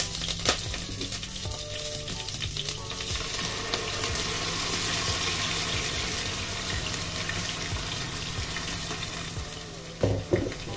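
Oil sizzling in a granite-coated pot as a blended yellow spice paste is poured in from a blender jug, the sizzle growing louder about a third of the way through. Near the end come a couple of knocks as the jug is set down.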